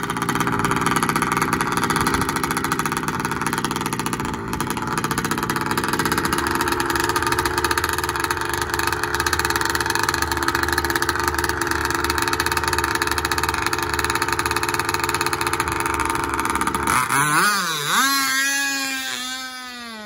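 Enforcer Stingray RC hydroplane's small combustion engine running loud and steady at the dock. About 17 seconds in, its pitch sweeps up and down and the sound fades as the boat speeds away across the water.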